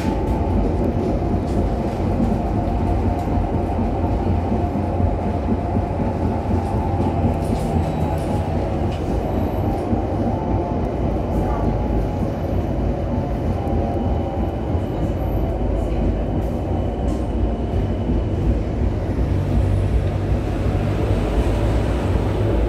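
Interior noise of a moving V3A-2010-CA articulated tram: a steady rumble of steel wheels on the rails and the running gear, with a few faint clicks.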